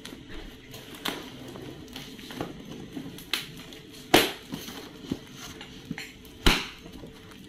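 Small cardboard box being handled and opened by hand: scattered light taps and rustles, with two louder knocks about four seconds and six and a half seconds in.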